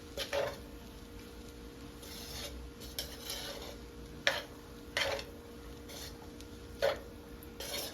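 Utensil stirring fried rice in a pan on the stove, with a handful of sharp knocks of the utensil against the pan.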